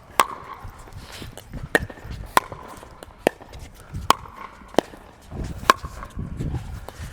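Table tennis rally: a celluloid-type ping-pong ball clicking back and forth off paddles and the table, about seven sharp hits each with a short ringing ping, roughly one every three quarters of a second.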